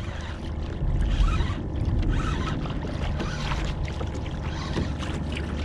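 Water rushing and lapping along a kayak's hull, with a steady low rumble of wind on the microphone.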